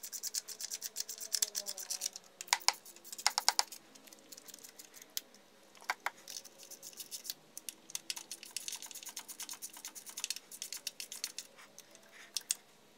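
Hand ratchet clicking in quick runs, with short pauses between, as oil pan bolts are run in and snugged before torquing. The loudest run of clicks comes a few seconds in.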